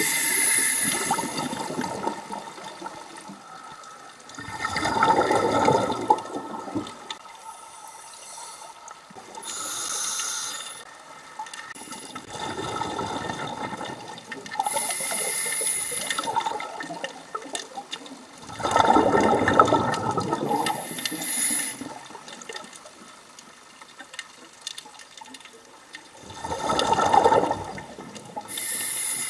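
A scuba diver breathing underwater through a regulator. The breaths come every few seconds: a hiss on the inhale and a gush of exhaled bubbles.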